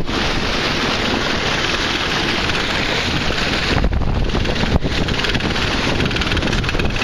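Wind buffeting the microphone over the rush and splash of water along the hull of a Snipe sailing dinghy moving fast in a strong breeze. A steady, loud hiss.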